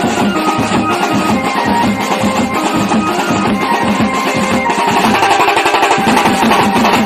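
Music with fast, steady drumming and a sustained melody over it.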